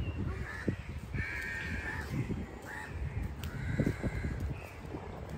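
Crows cawing, about three harsh calls a second or so apart, over a low rumble with soft thumps.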